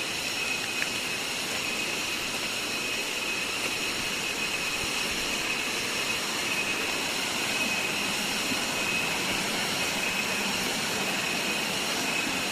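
Steady rushing of falling water, waterfall and rain noise, with an unchanging high-pitched whine running through it.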